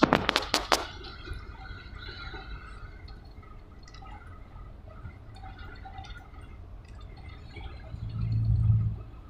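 Steady low rumble of road and engine noise inside a big truck's cab cruising on the highway. A quick rattle of sharp clicks comes right at the start, and a loud low hum swells briefly near the end.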